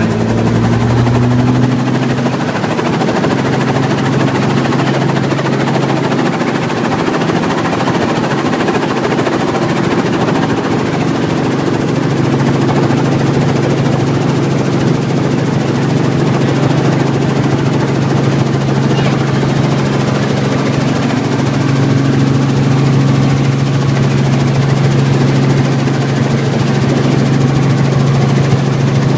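Helicopter engine and rotor noise heard from inside the cabin: a loud, steady drone that steps up slightly in pitch in the first couple of seconds, then holds.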